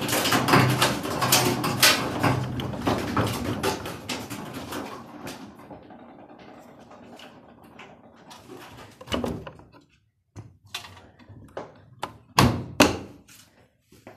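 Indesit washing machine with worn drum bearings, running loud and rough with a low hum and rattling, then dying away over several seconds as the drum slows. Near the end come a few separate knocks and thuds.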